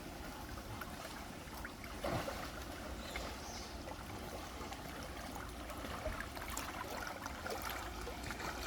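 Steady rush of a mountain stream, water flowing and trickling, with a few faint clicks.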